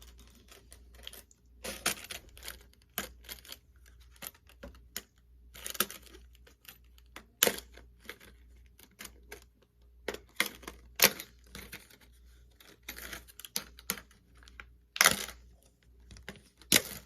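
Packaging being pulled open and handled: irregular rustles, tearing crackles and sharp clicks, with a few louder bursts.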